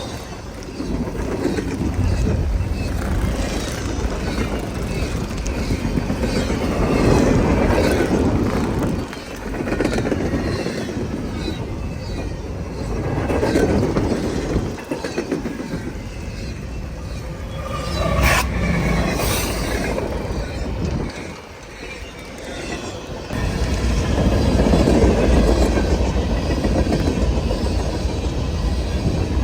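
A train rolling past, its cars rumbling and clattering over the rails in swells that rise and fall every few seconds. A brief sharp sound comes a little over halfway through.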